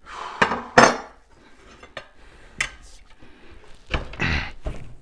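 Metal tire irons clanking and scraping against a spoked motorcycle wheel rim as a stiff rear tire's bead is levered off. A few separate clanks, the loudest just under a second in and another cluster about four seconds in.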